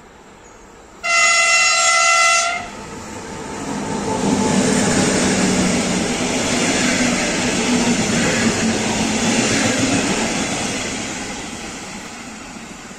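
Electric locomotive's horn sounding one steady blast of about a second and a half as it approaches. Then the locomotive and its train of double-deck coaches pass close by: wheel and rail noise swells, holds for several seconds and slowly fades as the train goes away.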